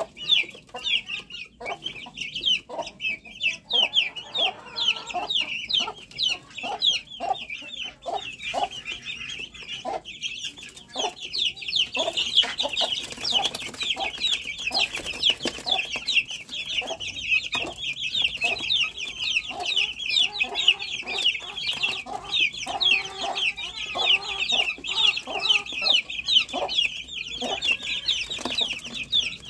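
A flock of young chicks peeping nonstop in a dense chorus of high, rapid, falling chirps, with lower clucking calls from chickens mixed in. The peeping grows louder about twelve seconds in.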